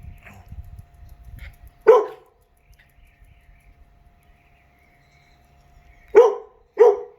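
Dog barking: one sharp bark about two seconds in, then two quick barks near the end, during a dispute between dogs over a raw fish.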